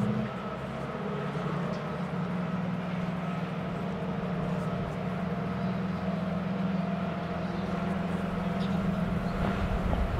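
Boat engines running with a steady, low drone.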